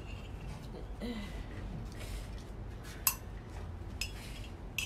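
A few sharp clinks and knocks, the loudest about three seconds in, over a steady low hum, with a faint voice murmuring about a second in.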